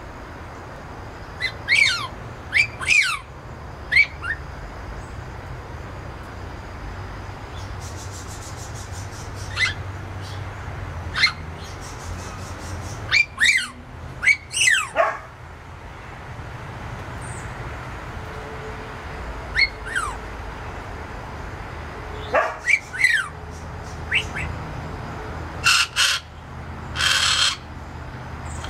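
Amazon parrot whistling: short, falling whistled notes in scattered bursts of two or three. Near the end come a few harsher, noisier calls.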